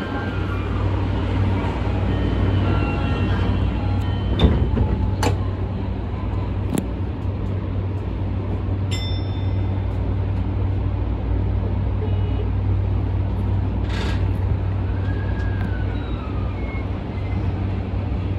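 Tokyu 2020 series subway train standing at a platform, its equipment giving a steady low hum in the cab. A few sharp clicks come a few seconds in, and a short falling tone sounds near the end.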